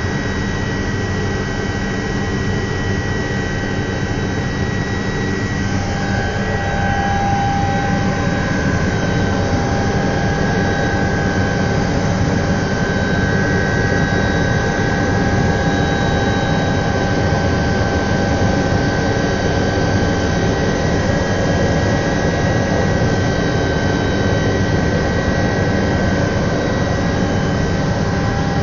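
Alouette III helicopter's Turbomeca Artouste turboshaft engine and rotors running steadily in flight, heard inside the cabin: a constant loud roar with steady high turbine and gearbox whines over a low hum.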